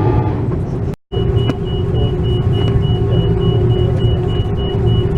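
Steady low rumble of an Airbus A330-300's cabin before takeoff, with a steady hum over it. The sound cuts out completely for a moment about a second in.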